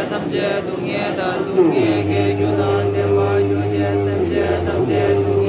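Tibetan Buddhist monks chanting prayers in unison, many male voices sliding into long held notes, with a low steady drone joining about two seconds in.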